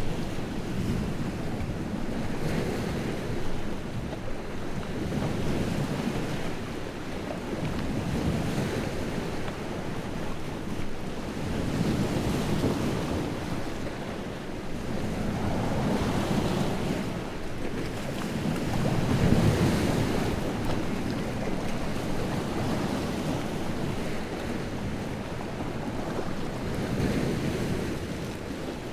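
Large lake waves whipped up by strong wind, breaking and washing on the shore. A continuous wash that swells and falls every few seconds, loudest about two-thirds of the way through.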